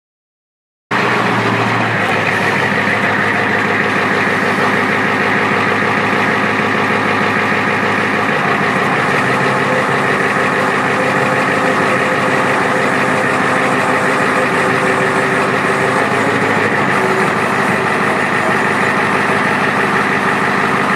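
An older Ford F-series dump truck's engine running steadily at idle while the hydraulic dump hoist raises the bed. The sound starts abruptly about a second in and stays even throughout.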